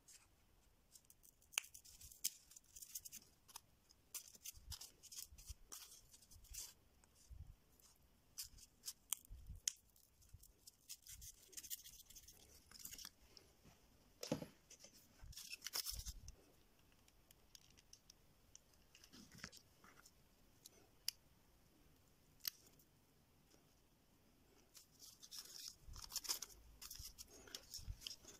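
Faint, scattered clicks, taps and scraping of cardboard pieces and small hand tools being handled and worked on a tabletop, with louder bursts of scraping about halfway through and again near the end.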